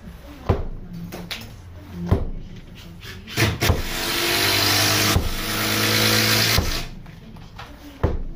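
Club hammer blows striking brickwork, single sharp knocks about every one to two seconds. In the middle, for about three seconds, a loud steady mechanical noise like an engine, with hiss, drowns out the blows and then cuts off suddenly.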